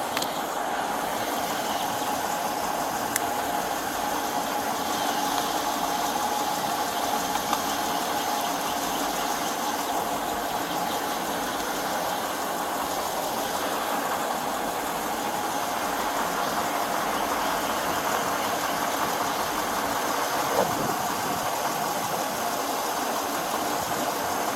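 A vehicle engine idling steadily, with a couple of faint clicks.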